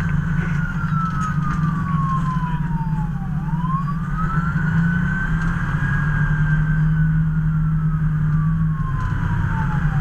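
Fire apparatus siren on a wail, its pitch sliding slowly down and climbing back up about every six or seven seconds, over a steady low engine drone.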